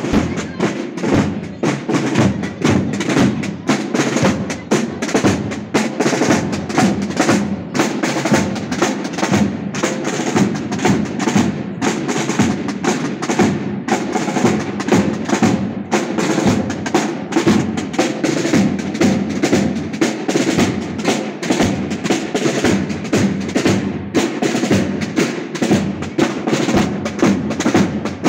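A procession drum corps playing many slung marching drums with sticks together: dense, steady rhythmic drumming.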